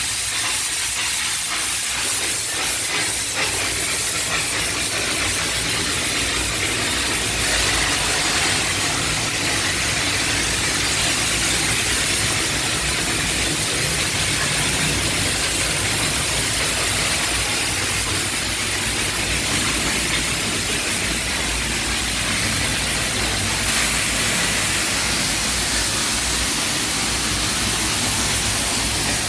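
Steam-cleaner wand hissing steadily as it sprays steam onto a car, with a low steady hum beneath.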